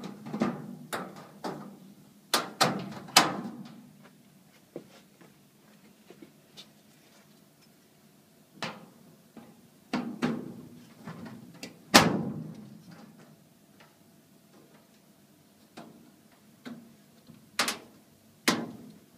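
Steel drawer runners being hooked into the slots of a sheet-steel filing cabinet's side panels: a series of sharp metal clanks and knocks in three bunches, the loudest about twelve seconds in.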